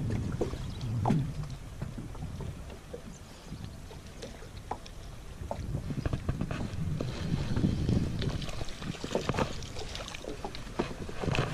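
Wind buffeting the microphone as an uneven low rumble that swells and fades, with scattered light knocks and clicks.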